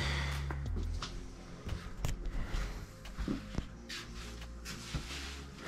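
Quiet small room with scattered light knocks, clicks and rustling as people move about, over a low rumble in the first second.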